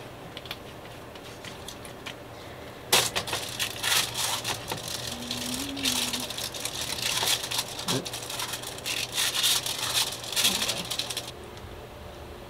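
Aluminium foil crinkling and rattling as a foil-lined baking tray is handled, starting about three seconds in as a quick, irregular crackle that cuts off abruptly near the end, over a low steady hum.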